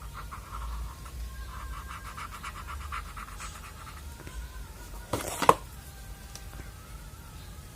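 Rustling and handling of packaging during an unboxing, with a brief loud rustle a little after five seconds in.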